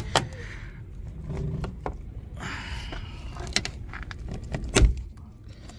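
Gloved hands handling the door's wiring harness and plastic plug connectors. There are a few sharp plastic clicks and knocks, the loudest about five seconds in, with rubbing and rustling between them.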